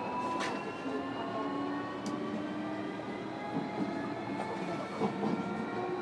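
JR Kyushu 305 series electric train heard from inside a motor car while running: the VVVF inverter and traction motor whine slowly rises in pitch as the train gathers speed, over the steady rumble of the wheels on the rails. A couple of short clicks from the track about half a second and two seconds in.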